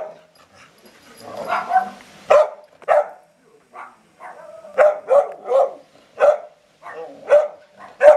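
Young pit bull barking up at a pine branch in play, about nine sharp barks, some in quick runs of two or three. Before the barks start there is a longer, wavering sound about a second and a half in.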